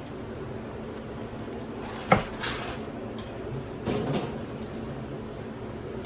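Kitchen handling sounds: a single sharp clank of cookware about two seconds in, then a few short scrapes and soft knocks as dishes and pans are moved.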